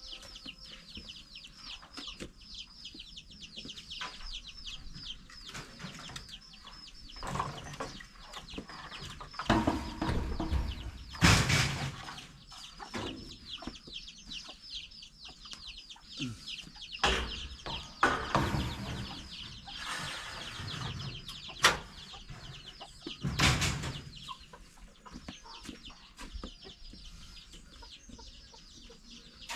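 Chickens clucking over a constant run of quick high chirping, with several louder rustling, knocking noises about ten, eighteen and twenty-three seconds in.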